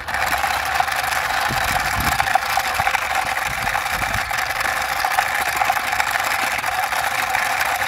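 A toy army helicopter pushed by hand, giving a steady mechanical whirring as its rotor spins, with a few soft low knocks.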